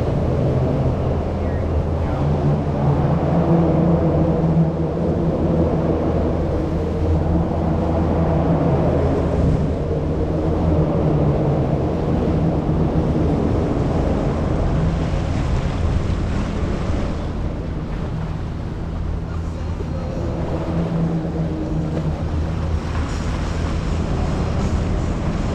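Tiki boat's motor running steadily underway, a low pitched drone that swells slightly a couple of times, with wind buffeting the microphone.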